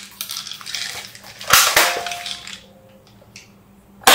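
Toy AWM sniper rifle firing twice, about two and a half seconds apart: a sharp shot about a second and a half in with a short ringing tone after it, and another shot at the very end.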